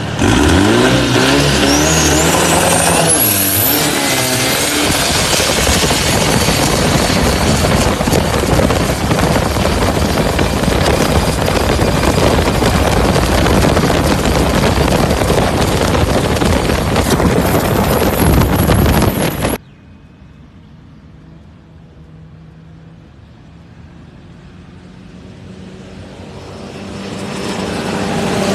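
Powerful racing-boat engine accelerating hard, its pitch climbing over the first few seconds, then running loud at high revs. About two-thirds of the way through it drops suddenly to a much quieter engine drone, which builds steadily louder again near the end.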